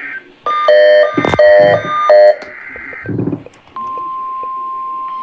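NOAA Weather Radio SAME alert-coding data burst, a raspy warbling buzz, with loud choppy beeping bursts over it in the first couple of seconds. About three and a half seconds in, a single steady alert tone starts and holds.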